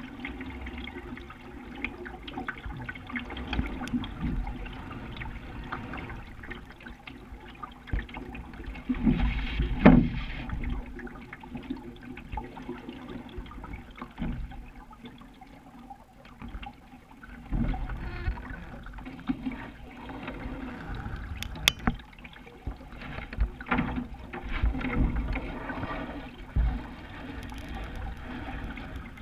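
Water sloshing and gurgling along the hull of a sailing dinghy under way, uneven, with louder surges now and then, the strongest about ten seconds in.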